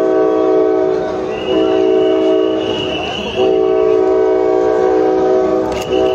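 Train horn sounding a chord of several notes in long, loud blasts, with short breaks about a second in, near three seconds and again near six seconds.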